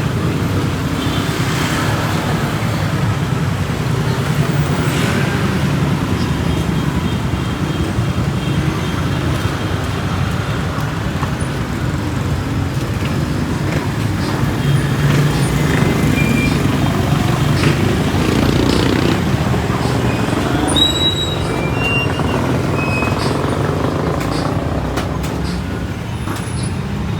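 Street traffic: vehicle engines running close by in a steady low rumble, with a few brief high squeaks about two-thirds of the way through.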